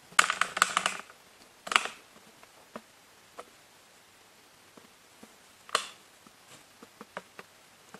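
Hands handling modelling clay on a wooden tabletop: faint scattered taps and clicks. There are short louder rustling bursts in the first second, about two seconds in and just before six seconds.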